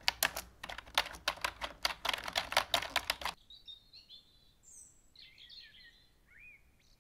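Fast typing on a computer keyboard, a dense run of key clicks that stops abruptly about three and a half seconds in. After that, faint bird chirps.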